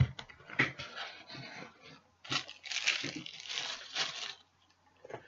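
Packaging being handled and rustled, with crinkling and tearing sounds. It opens with a sharp knock, and a longer stretch of rustling runs from about two to four seconds in.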